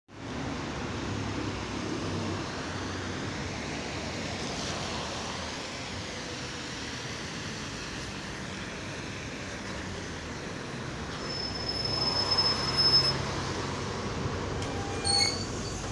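London double-decker bus approaching and pulling in to a stop on a wet road, its engine and tyres sounding steadily, with a thin high whine and louder running as it comes to a halt. A few short clicks follow as the doors open.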